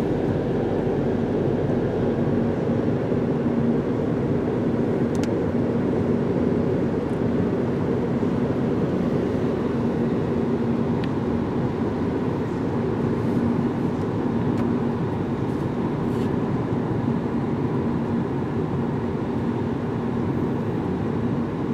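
Steady road and engine noise of a moving car, heard from inside the cabin, with a faint steady hum under it.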